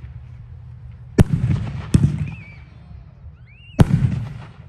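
Winda 'Precious Metals' 500 g multi-shot fireworks cake firing 2-inch shells: three loud bangs, the first about a second in, the next close after it, and the third near the end, each trailing off in echo.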